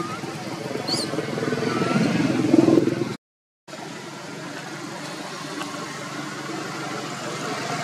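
Steady motor-vehicle engine hum that swells for the first three seconds, with a few short high chirps over it. The sound drops out briefly about three seconds in, then the hum carries on.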